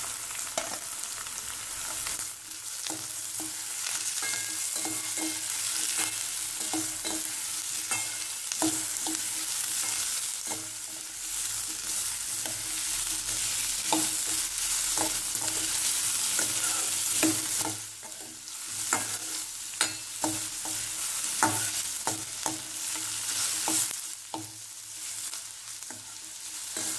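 Chopped onions and green capsicum sizzling in hot oil in a stainless steel kadai as they are sautéed, stirred with a metal slotted spoon that scrapes and knocks against the pan now and then over a steady hiss.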